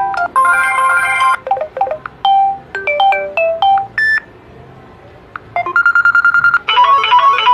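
Phone notification tones previewed one after another: several different short melodic chimes and jingles, with a pause in the middle, then a fast run of repeated beeps and a final chime near the end.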